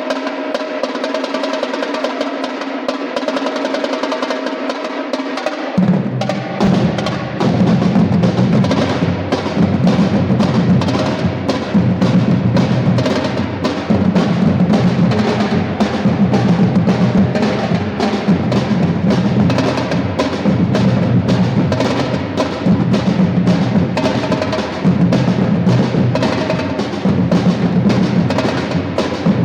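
Drums playing a fast, steady rhythm. They come in about six seconds in, after a few seconds of held musical tones.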